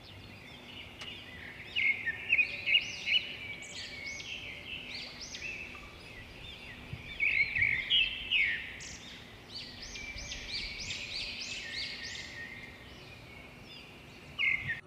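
Small birds chirping in a busy chatter of quick, high calls, loudest in clusters about two seconds in and again near the middle.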